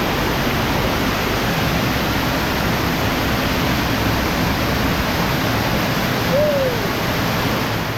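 Waterfall rushing, a steady loud wash of falling water; a brief falling tone cuts through about six seconds in.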